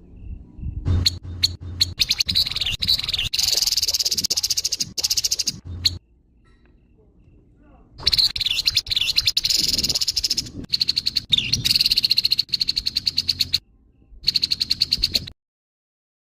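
Grey-headed babbler (tepus kepala abu) giving harsh, rapid chattering calls in two long runs of quickly repeated notes, with a pause of about two seconds between them. The second run cuts off abruptly near the end.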